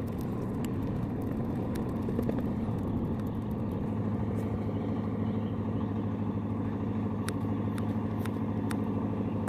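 A steady low engine drone runs throughout, with small scissors snipping raw fish offal into bait pieces as faint sharp clicks every second or so.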